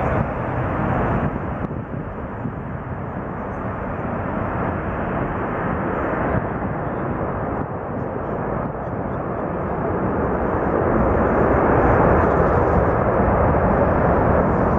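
Antonov An-124-100 Ruslan's four Progress D-18T turbofans at high thrust, heard from behind as the jet rolls away down the runway: a dense, steady jet noise with deep rumble. It swells louder through the second half.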